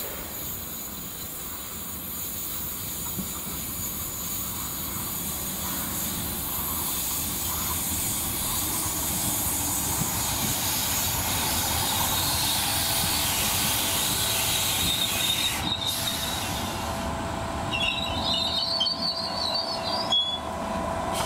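DART 8100-class electric train running in along the platform on curved track, its wheel and track noise growing steadily louder as it comes close. Near the end a wavering, high-pitched wheel squeal rises over the running noise.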